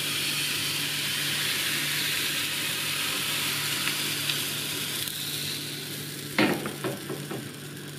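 Thin pancake batter sizzling as it is poured onto a hot, oiled crepe pan: a steady hiss that eases off a little. A few sharp knocks come about six and a half seconds in.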